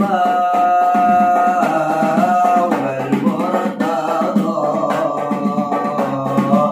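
Young men's voices singing a sholawat (Islamic devotional song in praise of the Prophet) in a melismatic style with long held notes, accompanied by a rebana hand frame drum beaten in a quick, steady rhythm.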